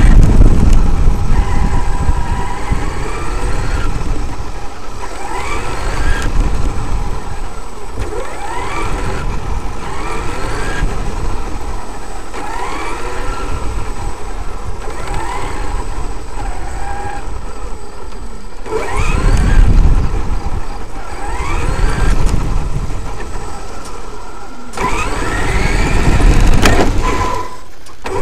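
Traxxas X-Maxx's brushless electric motor whining up in pitch again and again as the throttle is applied, over a rough rumble of tyres on gravel, heard from on board the truck. The rumble swells louder twice in the second half.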